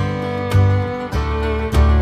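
Background music: a guitar-led tune with a steady beat, its notes falling about twice a second over a low bass line.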